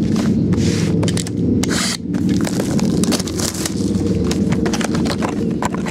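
Hands unwrapping and opening a sealed trading-card hobby box: crinkling plastic wrap and cardboard scraping in many quick, irregular crackles, over a steady low hum.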